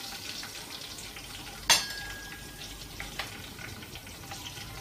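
Chopped green chilies sizzling in hot oil in a wok, stirred with a spatula. About two seconds in comes one sharp metal clank that rings briefly.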